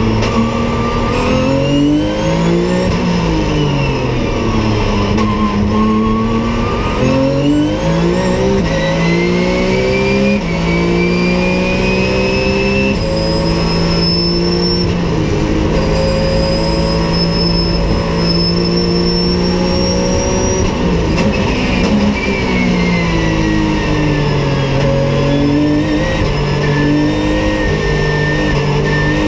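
Porsche 911 GT3 Cup race car's naturally aspirated flat-six engine at racing speed, heard from inside the cockpit. The revs climb through three quick upshifts, hold high and steady for several seconds, then fall away through downshifts about two-thirds of the way in before climbing again near the end.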